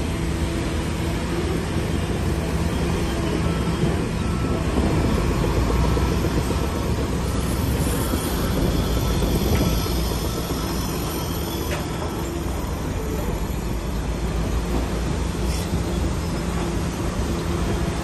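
Heavy earthmoving machine's diesel engine running steadily, pulling harder and louder for several seconds midway, with a few metallic knocks.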